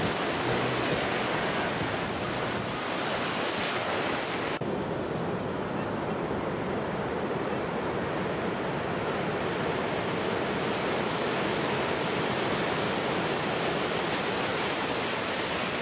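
Breaking surf and foaming whitewater washing in, a steady rush of noise that loses some of its hiss about four and a half seconds in.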